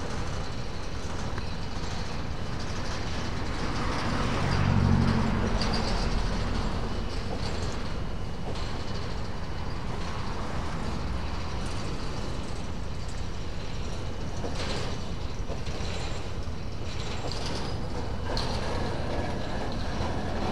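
Long freight train of boxcars rolling slowly along the track: a steady rumble with occasional short metallic knocks. A louder low hum swells about four to six seconds in.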